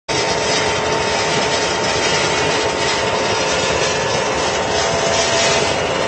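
Mesh belt heat-treatment furnace line for nails running: a loud, steady noise of machinery with a faint constant hum tone in it.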